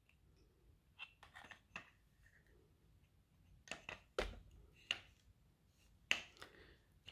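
Scattered faint clicks and light knocks of an AR-15's metal upper and lower receivers being handled and lined up against each other, with a few slightly firmer knocks about four and six seconds in.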